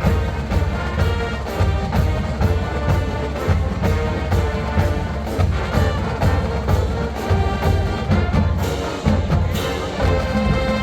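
Marching band playing: brass over a steady, evenly spaced drum beat.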